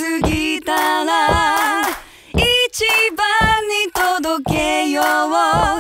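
Background music: a song carried by a woman's singing voice, with little instrumental backing.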